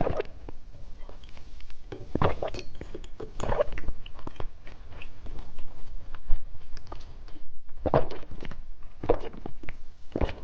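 Close-up chewing of candy, with crisp crunching bites coming in irregular clusters every second or two and softer mouth sounds between them.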